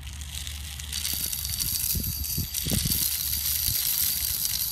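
Steel BBs pouring from a plastic bottle's spout into the loading port of a Daisy Red Ryder BB gun, a continuous rattling trickle that starts about a second in.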